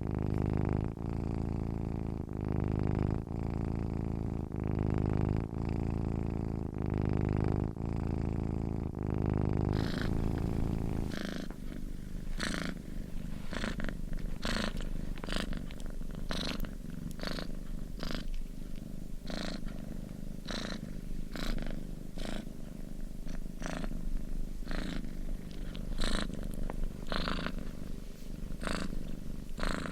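Domestic cat purring steadily close up, pulsing with each breath about once a second. About eleven seconds in the sound changes, thinner, with sharper strokes on each breath.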